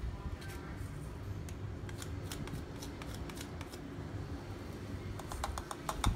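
Light, sharp clicks of a thin stick tapping a plastic jar as fish food is scooped and flicked onto the water, in scattered taps and then a quick flurry near the end.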